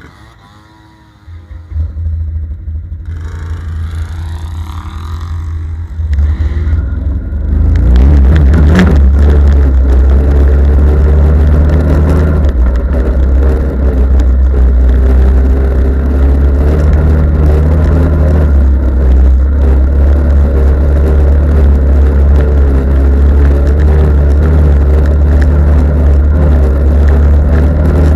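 Off-road vehicle engine revving hard. It comes in about a second in, grows louder in steps, and from about eight seconds on runs loud and steady at high revs with its pitch wavering up and down, over a heavy low rumble.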